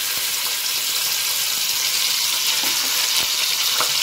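Mutton chop pieces sizzling in hot oil in a pressure cooker as they go in: a steady, dense hiss, with a couple of faint clicks near the end.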